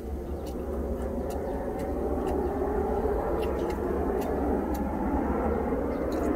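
A rumble of passing traffic that builds steadily louder over a low steady hum in the truck cab, with faint crunchy clicks of someone chewing fried pork cutlet.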